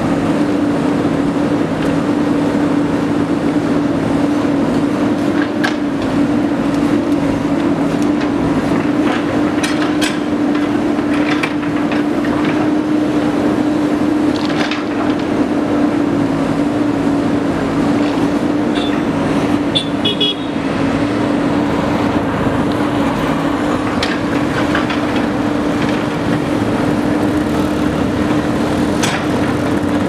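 JCB 3DX backhoe loader's four-cylinder diesel engine running steadily with a constant hum while the backhoe bucket works the soil, with scattered knocks and a brief high-pitched tone about two-thirds of the way through.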